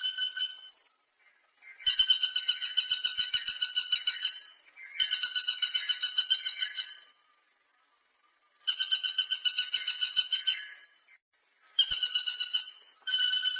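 Woodpecker calling: about five bursts of rapid, high, evenly repeated notes, roughly ten a second, each burst lasting about two seconds with short gaps between.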